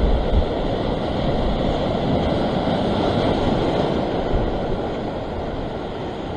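Surf breaking and washing over coastal rocks, with wind rumbling on the microphone.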